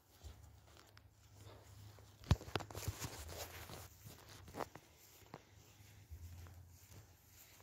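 Footsteps and rustling of someone walking, with irregular clicks and scuffs; a short burst of rustling and sharp clicks about two seconds in, then a couple of single knocks.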